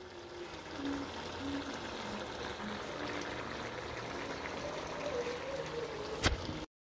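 Food simmering and sizzling in a cast-iron pot: a steady crackly hiss. A single sharp click about six seconds in.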